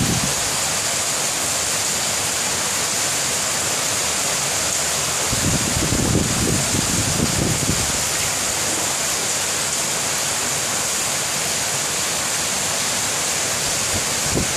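Steady hiss of heavy rain, with a low rumble for a couple of seconds about six seconds in.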